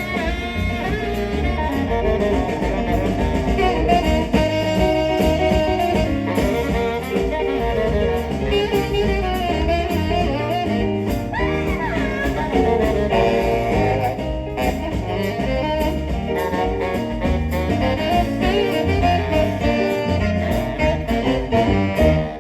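Jazz music with a saxophone lead over a walking bass line, fading out at the very end.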